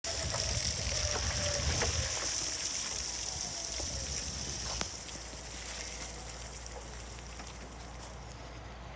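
Hyster E2.00 battery-electric forklift driving on wet gravel, its tyres hissing and crunching over a high steady whine. It is loudest at first, close by, and fades as the truck moves away.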